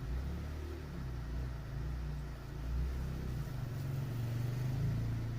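Low engine rumble from a motor vehicle running, its pitch moving up about halfway through.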